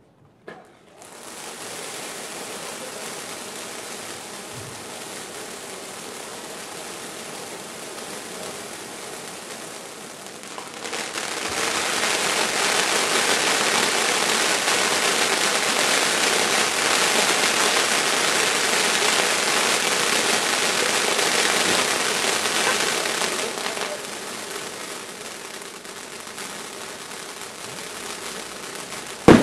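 Rubro Thunderous Buffalo ground firework burning with a steady, crackling hiss. It grows louder about a third of the way in and eases off again in the last few seconds. A single sharp bang ends it.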